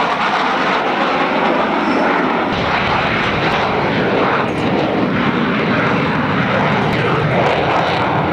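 Jet engine noise from A-6 Intruder attack jets flying past: a loud, steady rushing roar, changing slightly about two and a half seconds in.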